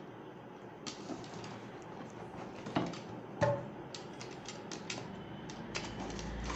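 A snap-off box cutter clicking and scraping against a cardboard box as it cuts the packing tape, a few sharp clicks at first, then a quicker run of clicks in the second half.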